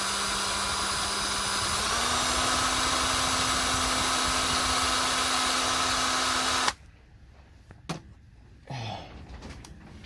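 Electric drill running steadily, boring a small hole in the engine's rear main seal so screws can be driven in to pull the seal out. Its pitch steps up slightly about two seconds in, and it stops suddenly near seven seconds, followed by a few faint clicks.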